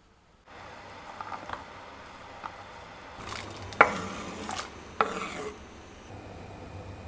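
A knife scraping ravioles across a wooden cutting board into a stainless steel pot: rasping scrapes on the wood, with two sharp knocks against the pot, the first the louder, a little over a second apart near the middle.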